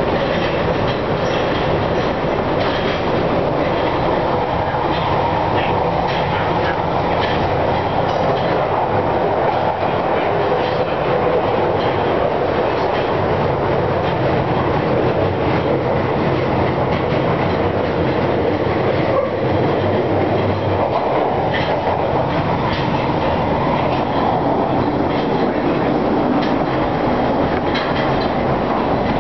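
Interior running noise of a London Underground 1967 Tube Stock train at speed in a deep-level tube tunnel: a steady rumble of wheels on rail with frequent light clicks over the rail joints and a low traction-motor hum that shifts partway through.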